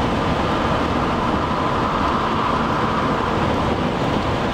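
Steady road and tyre noise of a moving car, heard inside its cabin.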